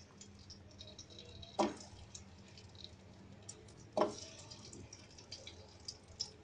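Chicken nuggets frying in a pan of oil, with a faint, steady crackle and scattered small pops. Two sharp knocks come about a second and a half in and again about four seconds in.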